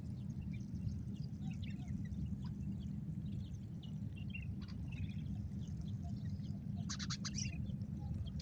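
Birds chirping in short scattered calls over a steady low outdoor rumble, with a brief flurry of sharp rustling clicks about seven seconds in.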